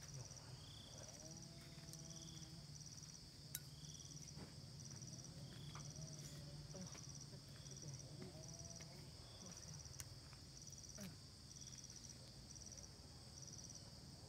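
A faint, steady chorus of insects, crickets or similar, with short high trills repeating about once a second. A couple of light sharp clicks stand out, one about three and a half seconds in and one about ten seconds in.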